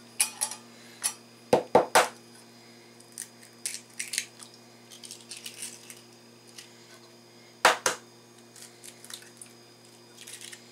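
Eggs knocked against a stainless steel bowl and cracked into it: a quick cluster of three sharp clinks about a second and a half in, a single sharp clink later on, and light clicks of shell and bowl between.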